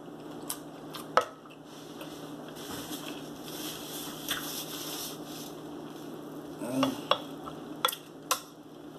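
Fork and knife clinking and scraping against a plate: a sharp clink about a second in and several more near the end. In between, a soft rustle of a paper napkin.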